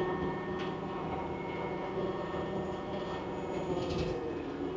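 Engine of a brush-mowing machine running steadily under load, a constant hum with a brief rattle about four seconds in.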